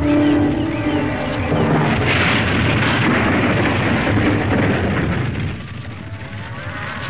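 Cartoon sound effect of an animal herd stampeding through a village gate: a long crashing rumble that swells about two seconds in and dies down after about five seconds, under background music.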